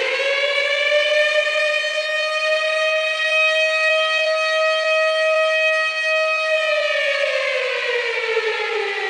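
Air-raid siren sound opening a heavy metal intro track, held at a steady howl and then winding down in pitch over the last couple of seconds.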